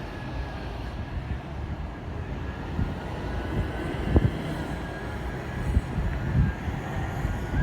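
City street ambience: a steady low rumble of traffic, with a few low thumps, the loudest about four seconds in.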